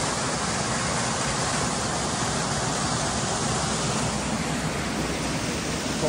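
Waterfall rushing over rocks: a steady, loud noise of falling water.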